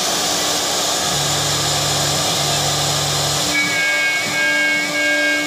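Multi-spindle CNC router engraving a board, its spindle cutting with a steady loud hiss. A low motor drone joins from about one second in to about three and a half seconds, with a short break in the middle. After that a high whine comes and goes in short stretches.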